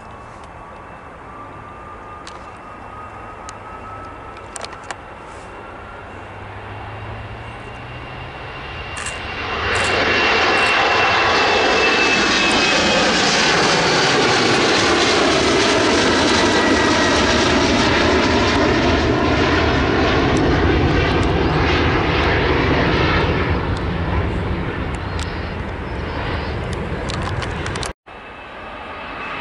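Embraer E-Jet airliner's twin turbofan engines at takeoff power as it rolls and climbs out. The jet noise builds with a slowly rising whine, turns loud about ten seconds in as the aircraft passes overhead, its tones sweeping downward as it goes by, then fades away. It breaks off briefly near the end.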